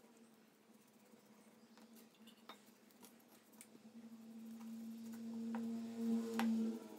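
Paintbrush strokes with a few light taps as wood finish is brushed onto a wooden handle. Under them is a steady low hum that swells in the last few seconds.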